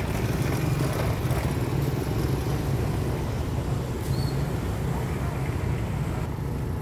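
Diesel locomotive's engine rumbling steadily as it hauls a passenger train away from the station.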